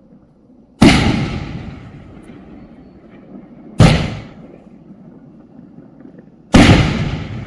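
Three loud booms from a Sonny Euro 2 56-shot aerial fireworks cake, about three seconds apart, each dying away over a second or two.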